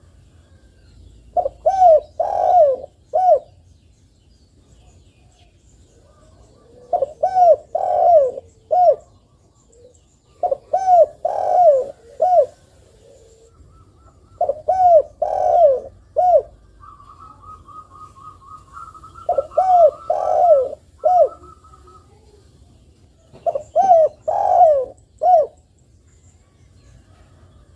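Spotted dove (tekukur) cooing repeatedly in full song: six phrases of three or four loud, arching coos, one every three to four seconds. A thin, higher trill runs beneath the calls for about five seconds in the middle.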